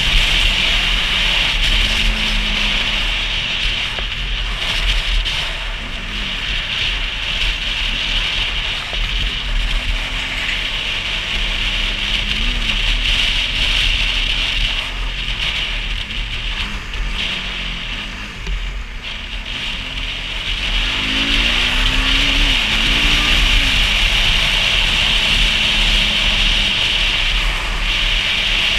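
Motorcycle engine running under a steady rush of wind noise while riding. Near two-thirds through it eases off, then revs up in three short rising sweeps as it picks up speed through the gears.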